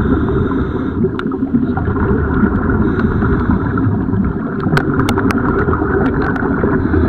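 Underwater noise picked up by a diving camera: a steady low rumble of moving water with scattered sharp clicks, several close together about five seconds in.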